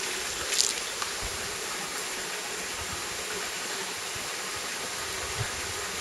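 Steady rush of flowing water from a mountain stream, with a brief sharp sound about half a second in and a few soft low bumps.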